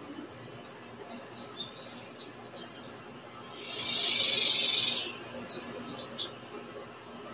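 Small birds chirping in scattered bursts of short, high chirps. A loud hiss, high in pitch, swells up and fades away over about a second and a half midway through.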